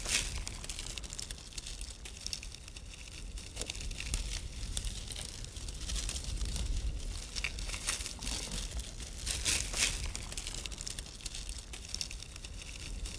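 Cut grass stalks being handled and snapped by hand, an irregular dry rustling and crackling, busiest about two-thirds of the way through, over a steady low rumble.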